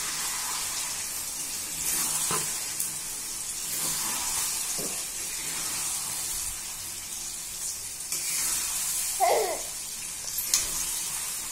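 Battered chicken pieces sizzling as they fry in oil in a steel kadai, with a metal spatula scraping and stirring through them. A short, louder scrape about nine seconds in is followed by a sharp knock of the spatula on the pan.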